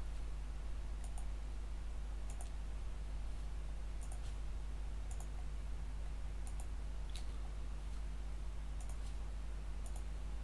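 Computer mouse clicking: faint short clicks, mostly in pairs, every second or so, over a steady low hum.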